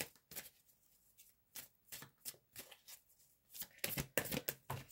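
Oracle cards being handled: a scatter of light card slaps and slides, growing into a quick flurry near the end as the next card is drawn from the deck.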